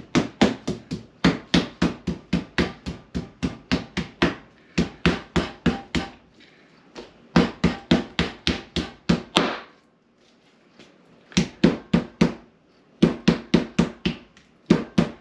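Meat mallet pounding raw steak on a cutting board to tenderize it: quick, even blows about five a second, in several runs with short pauses between.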